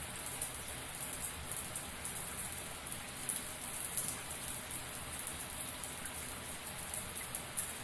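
Running shower: a steady hiss of water spray with a fine patter of drops, even throughout.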